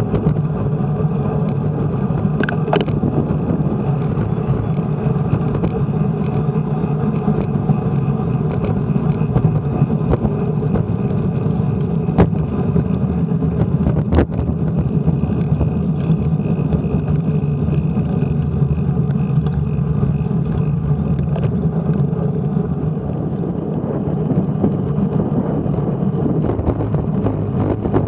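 Steady wind and road noise picked up by a camera mounted on a moving road bike, with a few sharp clicks.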